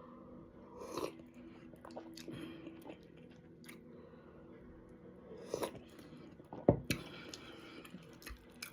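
Someone chewing and biting food close to the microphone, with a few short sharp clicks in between, the loudest about seven seconds in.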